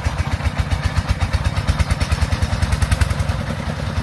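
Single-cylinder diesel engine of a công nông farm truck running, a fast, even chugging of about ten beats a second.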